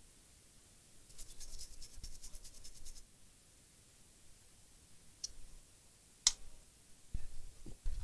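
Toothbrush scrubbing an iPad mini logic board with alcohol: a couple of seconds of rapid, even brushing strokes, cleaning flux off a freshly soldered digitizer connector. Later come a sharp click and a few light knocks.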